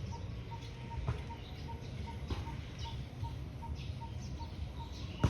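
Birds chirping with short, high calls over a steady, rapid run of even pips, about five a second, and a low background rumble.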